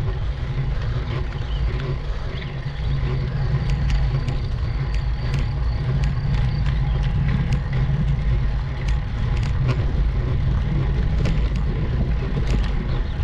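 Steady low rumble of road and wind noise while riding a road bike up a steep climb, with scattered light clicks throughout.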